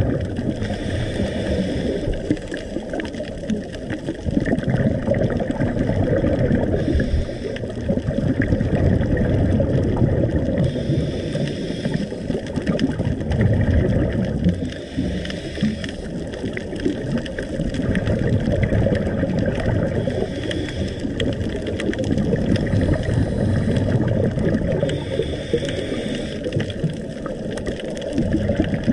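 Muffled underwater noise through a dive camera's housing: a low rumble and gurgle of water and scuba bubbles that swells and eases every few seconds, with brief hissing bursts above it.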